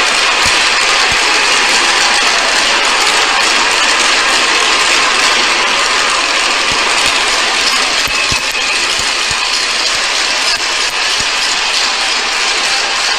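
Hockey arena crowd cheering loudly and steadily as two players fight on the ice, heard through a TV broadcast, with a few low thumps.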